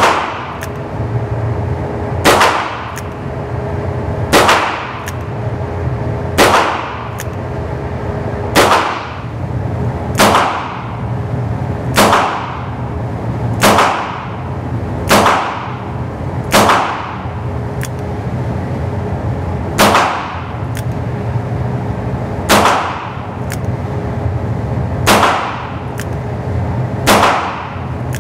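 Ruger GP100 .22 LR revolver being fired in slow, steady strings, about fifteen sharp shots one to two and a half seconds apart, each echoing in an indoor range over a steady background hum.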